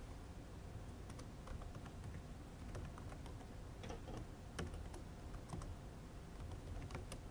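Quiet typing on a computer keyboard: irregular, separate keystrokes as a line of code is entered.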